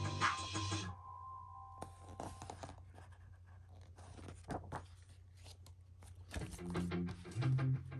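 Background music cuts off about a second in, leaving scattered clicks and rustling as the CD album packaging is handled. Music comes back in near the end.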